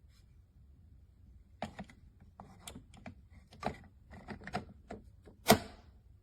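A run of short, irregular clicks and knocks, like small hard objects being handled and set down, with one louder knock about five and a half seconds in.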